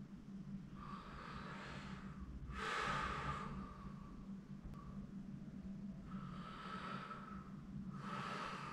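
A person breathing slowly and audibly, four breaths in all, the one about three seconds in the loudest, over a steady low hum.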